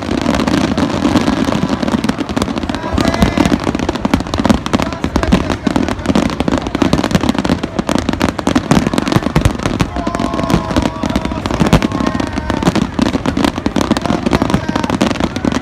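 Aerial fireworks in a dense barrage: bangs and crackling follow one another many times a second without a break, over a continuous low rumble.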